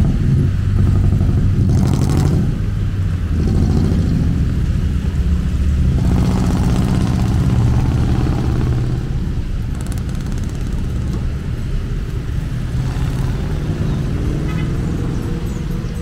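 Congested road traffic of cars and motorbikes on a wet road: engines running low and steady in the jam, with a few louder vehicle passes about two, six and thirteen seconds in.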